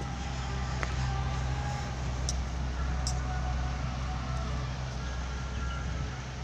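Steady low machine hum, with faint higher tones wavering over it and a few brief ticks.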